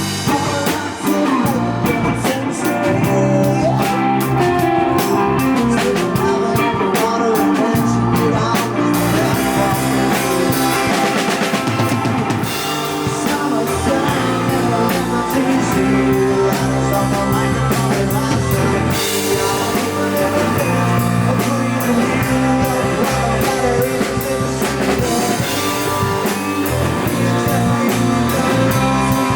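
Live rock band playing, with a drum kit keeping a steady beat under guitar and bass.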